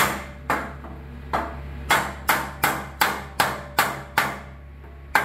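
Hammer blows on the top of a door frame as it is fitted into the doorway: about ten sharp strikes, spaced out at first, then about three a second, with a short pause near the end.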